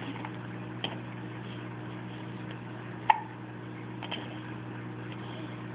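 A steady low hum with a few brief short sounds over it, the loudest a quick high blip about three seconds in.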